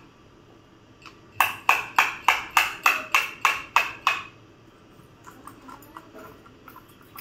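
Hammer striking the end of a screwdriver driven into a green coconut's husk to punch a hole for the water: about ten quick ringing blows, three or four a second, starting a little over a second in. A few faint light clicks follow.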